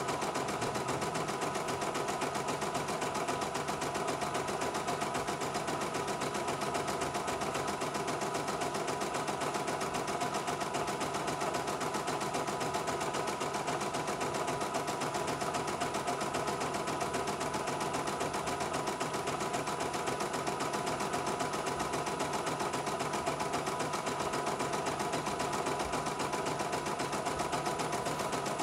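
CNY E900 portable embroidery machine stitching a design from its hoop: a fast, even needle rhythm that runs steadily without a break. It is near the end of the design, in a test run the owner says went smoothly from start to finish.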